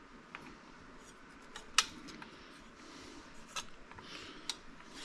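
Metal plumbing fittings and flex lines being handled: a handful of sharp clicks and light clinks, the loudest about two seconds in, with faint rustling between.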